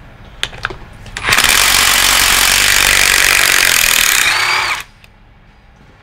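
Cordless impact driver running for about three and a half seconds as it backs out a case bolt from an NP241 transfer case, after a few light clicks at the start.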